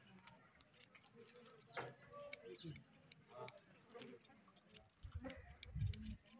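Barber's scissors snipping a mustache trimmed over a comb: quick, uneven little clicks throughout, with a brief low rumble near the end.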